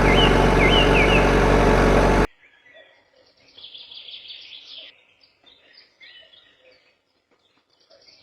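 Small birds chirping, with a loud steady mechanical hum over them for about the first two seconds that cuts off suddenly; after it the chirps go on faintly.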